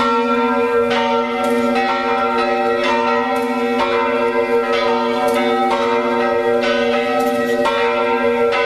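The church's old bronze tower bells ringing together. Strikes come roughly once or twice a second at uneven spacing, each over the long, steady hum of the bells still sounding.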